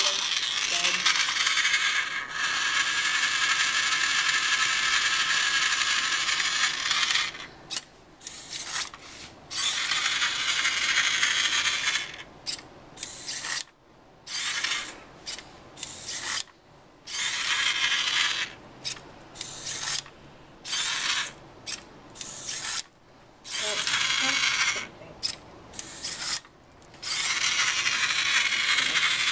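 Small electric drive motors and gearing of a homemade painting robot whirring as it drives, a high, rough whir. It runs steadily for about the first seven seconds, then starts and stops repeatedly in short spurts of a second or so.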